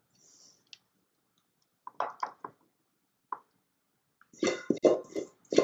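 A spoon scraping and knocking inside a stainless steel mixing bowl as a sticky nut-butter and seed mixture is scraped out into a pan. A few soft knocks come about two seconds in, then a quick run of louder knocks near the end with the bowl ringing.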